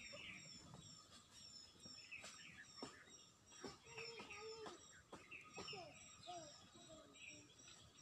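Faint, high-pitched chirping repeating about twice a second, with a few soft clicks and some lower sliding calls in between.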